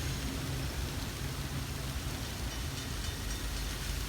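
Freight train receding after its last car has gone by: a steady rumble over broad noise, the low hum fading about halfway through.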